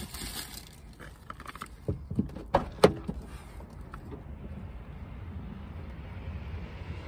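Handling noises inside a van cabin: a quick run of clicks and knocks, the loudest near three seconds in, then a steady low rumble.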